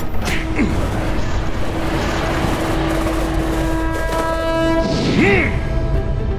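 Layered action sound design for a TV battle scene: a dense rushing noise under long held tones, then a brief swooping cry about five seconds in.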